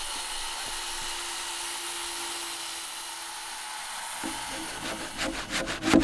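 Handsaw cutting through a wooden glulam beam in quick, even back-and-forth strokes, starting about five seconds in after a few seconds of faint, steady hiss.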